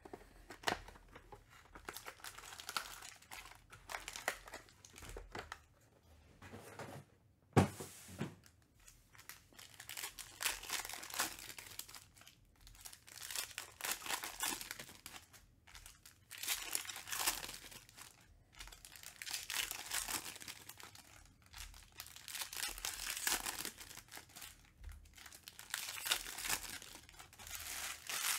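Trading-card foil packs being torn open and their wrappers crinkled by hand, in repeated crackling bouts every few seconds. A single sharp snap about seven seconds in is the loudest sound.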